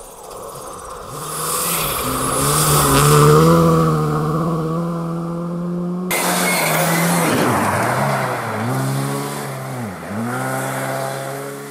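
Rally car engine accelerating hard, its pitch rising with the revs and dropping back at each gearchange. About six seconds in the sound changes abruptly to another hard run, with two deep pitch drops between shifts.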